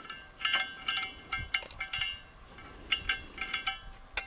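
A string of sharp metallic clinks and taps on a tall steel gas cylinder, each with a brief ring, coming in irregular clusters as fittings are worked at its valve.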